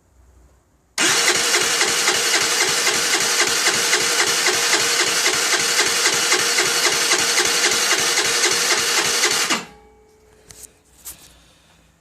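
Electric starter cranking the 50cc four-stroke engine of a Baotian Tanco scooter for about eight and a half seconds, in an even chugging rhythm of about five beats a second, then stopping suddenly. The engine does not catch: the scooter is hard to start.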